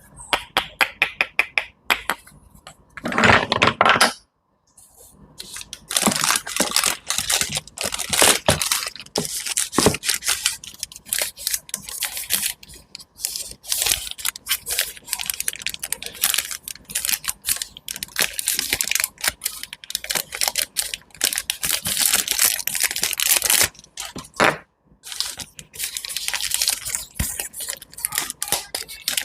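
Close-up crunching and crackling of food or squishy material being crushed and cut by hand, with many sharp snaps in quick succession and a short pause about five seconds in.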